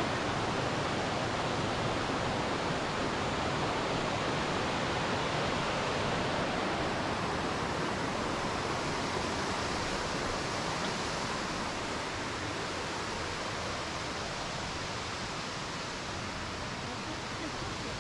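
Steady rushing roar of a waterfall, easing slightly toward the end.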